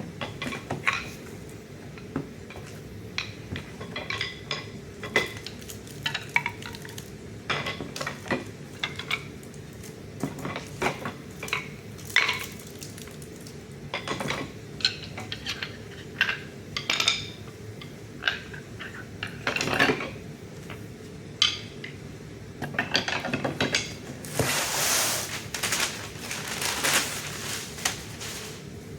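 Steel hammers being packed back into a box, their heads knocking and clinking against one another. Irregular clanks and clunks, with a few seconds of rustling near the end.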